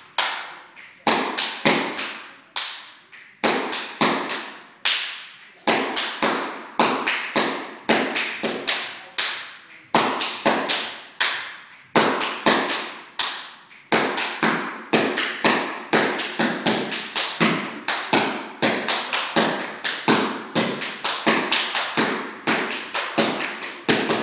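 Step dancing: sharp foot stomps on a wooden floor mixed with hand claps, hit in quick rhythmic patterns of several beats with short breaks between phrases.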